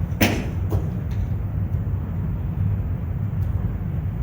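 Steady low rumble of room noise, with one sharp knock about a quarter second in and a few faint clicks after it.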